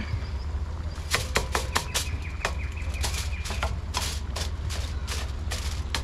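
Aluminium foil crinkling and crackling in an irregular string of sharp crackles as it is pressed and folded down over a pot, partly with kitchen tongs.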